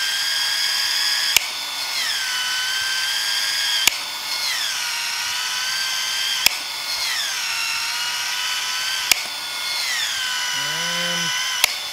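Milwaukee M18 ProPex cold-expansion tool running under trigger as it expands the end of a 1¼-inch Uponor PEX-A pipe and sleeve. Its motor whine is steady, with a sharp click about every two and a half seconds, after each of which the pitch drops and then holds. The tool stops abruptly near the end.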